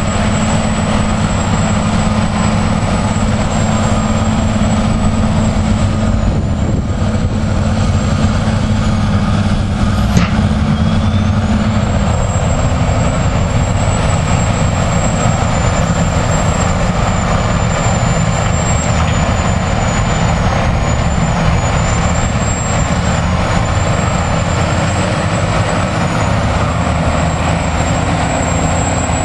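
Caterpillar 825 pad-foot compactor's diesel engine running under load, a loud, steady heavy rumble. The engine note shifts about twelve seconds in, and a single sharp click sounds shortly before that.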